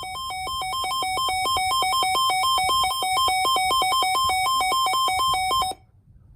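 Electronic emergency alert attention tone: two pitches alternating rapidly, growing louder over the first couple of seconds, then cutting off abruptly near the end.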